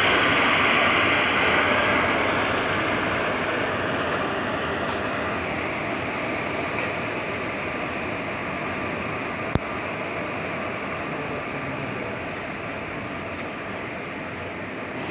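Indian Railways train rolling along the track at a platform, a steady rush of wheels on rails that slowly fades. A single sharp click comes about two-thirds of the way through.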